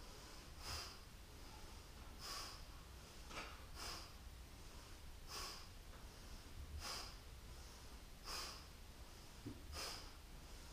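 A woman breathing audibly in short, sharp breaths, about eight in all, one every second and a half or so. The breaths are paced to a seated side-to-side yoga twist: in at centre, out on each reach toward the toe.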